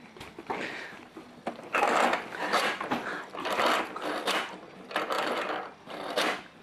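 The plastic seat of a Bright Starts Around We Go activity station rattling and clacking as it is pushed around its track, in a series of uneven bursts.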